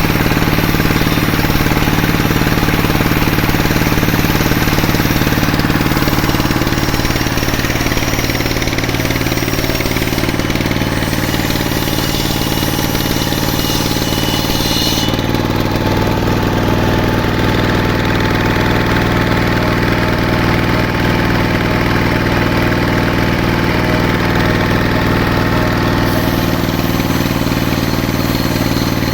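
Sawmill engine running steadily. About halfway through the higher, hissing part of the sound falls away and the low engine note carries on.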